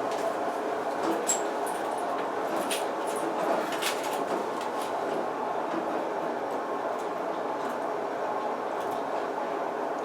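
Otis passenger elevator car travelling down the shaft: a steady rumble of the moving cab, with a few light clicks and rattles in the first few seconds.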